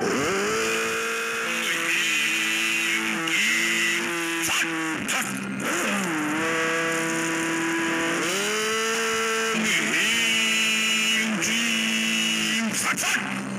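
Music from a TV programme playing through a Philips 20-inch CRT television's speaker, with long held melodic notes that slide up and down over a steady low drone. The set is playing again after its shorted horizontal output transistor was replaced.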